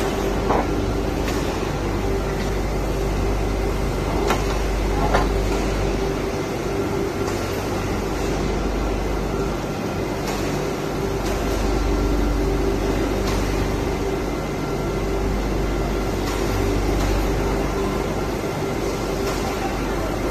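Steady machinery hum with a low rumble and a few steady tones, with a handful of light metallic clinks as steel fence rails are handled and set on a concrete floor.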